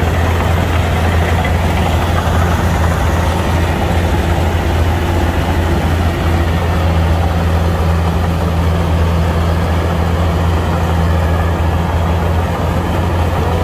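Kubota combine harvester's diesel engine running at a steady speed, a loud, even low drone that does not change.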